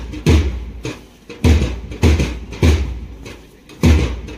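Marching bass drum beating steady march time, about one and a half to two heavy beats a second with now and then a weaker beat.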